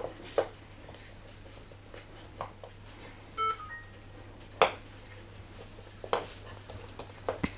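A puppy gnawing and handling a wooden stick on a laminate floor: scattered knocks and clicks a second or two apart. A short beeping tone about three and a half seconds in.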